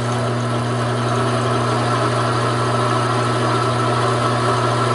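Taig micro lathe running under load with a steady motor hum as a parting tool cuts deep into a 1-inch bar of 1018 steel, fed by hand; the deep cut puts heavy resistance on the lathe's small motor.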